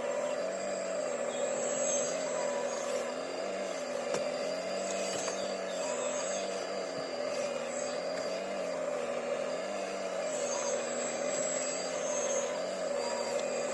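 Diesel engine of a heavy earthmoving machine running steadily, its pitch wavering gently up and down every second or two.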